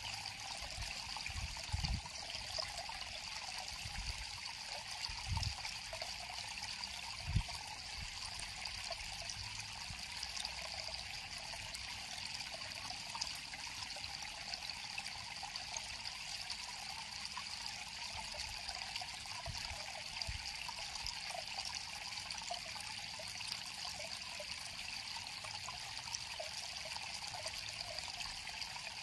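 River water flowing and trickling steadily. A few short low thumps in the first several seconds, the loudest about seven seconds in.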